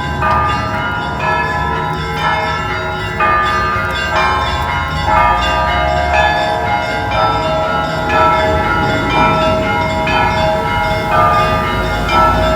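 Church bells ringing a peal: several bells of different pitch struck in quick succession, a new strike about every half second to a second, each left to ring on over the others.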